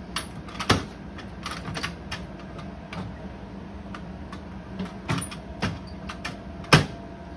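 IGT SAVP slot machine powering up: a low steady hum with scattered clicks and knocks as its reels turn to new positions. The sharpest knock comes near the end.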